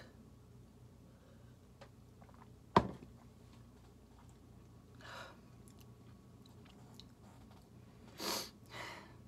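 A drinking glass set down with one sharp knock about three seconds in, then two loud breaths out through an open mouth near the end: panting against the burn of very spicy noodles.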